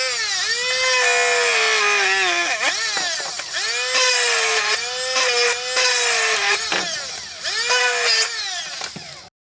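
Homemade 12 V DC-motor drill whining at high speed, its pitch dropping and rising again several times as its speed varies. It cuts off suddenly near the end.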